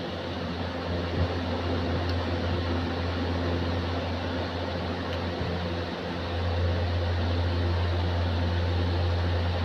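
Steady hum of an electric motor, a strong low drone with a rushing whir over it, growing a little louder about six seconds in.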